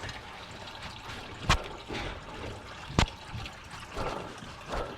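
Engine coolant draining from the radiator of a 2006 Mercedes Sprinter van, trickling and pouring steadily. Two sharp knocks come about a second and a half apart.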